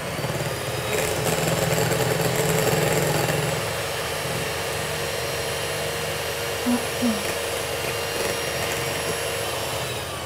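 Electric hand mixer whipping cream in a glass bowl: a steady motor whine with the beaters churning through the cream, a little louder for the first few seconds, stopping right at the end.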